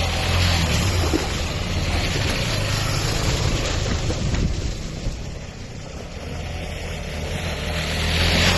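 KTM 250 Adventure motorcycle's single-cylinder engine running while the bike is ridden, with wind noise on the microphone. The engine eases off about two-thirds of the way in and builds up again near the end.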